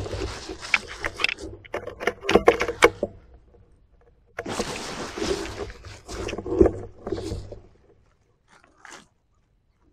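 Close rustling and handling noise from a scoped PCP air rifle being handled by someone lying in grass, with a cluster of sharp clicks a little over two seconds in and a second stretch of rustling from about four and a half seconds in, dying away near the end.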